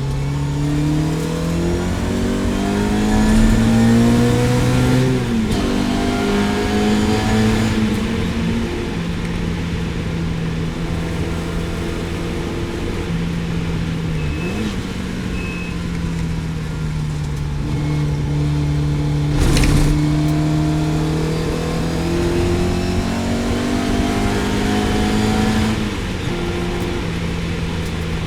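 Lotus Elan GTS race car engine pulling hard, its pitch climbing and then dropping at each gear change, several times over. About two-thirds of the way through there is one sharp bang.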